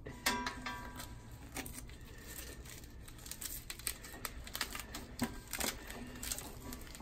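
Rustling and scraping of a padded fabric armrest cover being stretched over a wheelchair armrest by hand, with Velcro hook-and-loop straps pressed and pulled to fasten it underneath. A short squeak sounds near the start.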